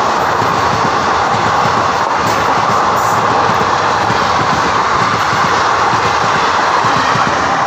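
Steady, loud rush of wheels on rail and wind as a train of ICF passenger coaches passes close by on the adjacent track, heard from a moving train. The noise eases off just after the last coaches go by.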